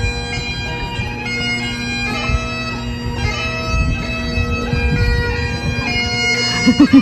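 Bagpipes playing a tune over their steady drones, with low rumbling noise underneath from about halfway through.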